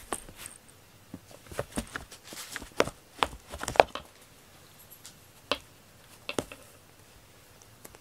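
A cat batting and clawing at a string cat teaser while lying on a corrugated cardboard scratcher: a quick run of scratches and taps in the first half, then a few single taps.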